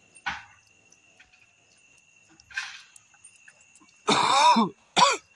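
Crickets chirp faintly and steadily behind a dog's short, soft sniffs. About four seconds in comes a loud, short vocal sound falling in pitch, and a brief second one just after.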